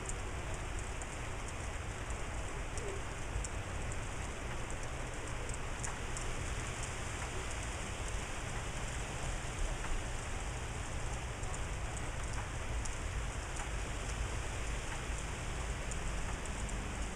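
Steady rain falling, with many small sharp ticks of drops landing close by, over a steady low rumble.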